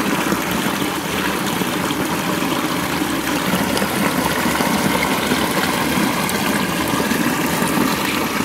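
A small forest stream pouring steadily through a narrow gap between mossy boulders and splashing into a pool below, heard as a continuous close-up rush of water.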